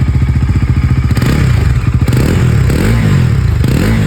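Bajaj Pulsar NS400Z's single-cylinder engine on its stock exhaust, idling with a steady pulse and revved in several short throttle blips, each rising and falling in pitch about a second apart. It is actually a bit loud.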